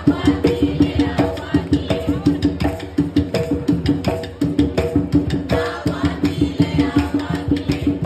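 Live Puerto Rican bomba drumming: barrel hand drums (barriles) played in a fast, steady rhythm, with two wooden sticks (the cuá) clicking a hard, woody pattern over them.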